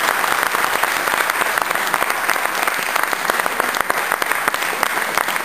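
A large crowd applauding, a dense, steady clatter of many hands clapping at once.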